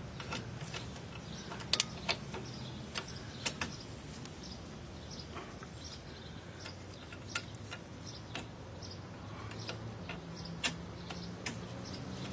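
Irregular light metallic clicks and taps of steel drum-brake hardware being handled as the parking-brake adjuster assembly is fitted back onto the backing plate.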